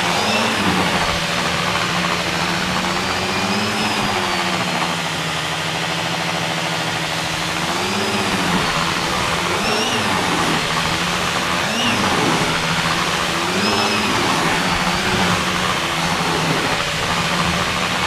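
Maytag Satellite vacuum cleaner running steadily while vacuuming. Its motor pitch briefly rises and dips every few seconds.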